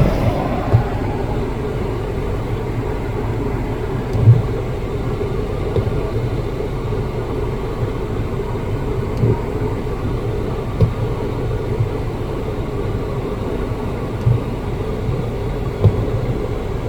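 Car driving: a steady low rumble of engine and road noise, with a few short knocks and bumps.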